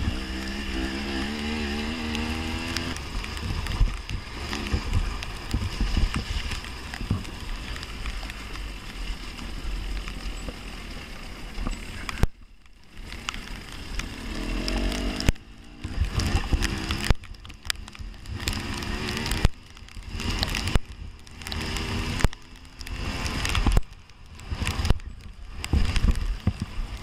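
Husqvarna TX 300 two-stroke dirt bike engine running and revving under racing throttle, heard from on the bike, with the pitch rising and falling over the first few seconds. In the second half the sound repeatedly cuts out suddenly and comes back.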